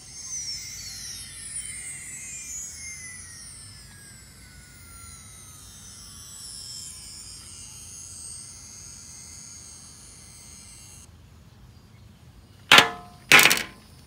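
Sound effect from a toy B2 bomber's electronic sound chip: a long falling whistle over high steady tones, cutting off suddenly about eleven seconds in. Two loud sharp clacks follow near the end.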